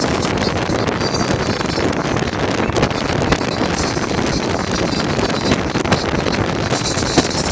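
Steady rush of wind on the microphone with the road noise of a moving car, heard from beside the car's side window.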